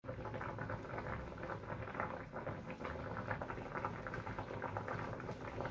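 Potatoes boiling hard in water in an uncovered stainless steel pot: a steady, dense bubbling made of many tiny pops.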